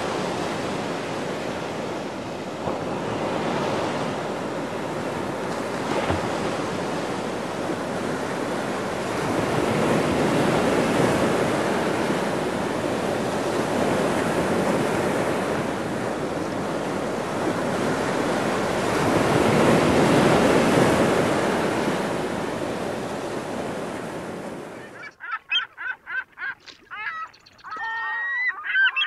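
Surf washing up a sandy beach, rising and easing with each wave, with some wind on the microphone. About 25 seconds in it cuts off suddenly and a run of short honking bird calls follows.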